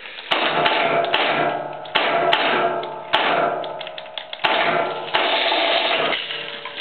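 Electric wire-rope hoist jogged in short bursts from its pendant control, lowering a heavy vise slung on chains. About five sharp clacks, each followed by a motor hum that fades away.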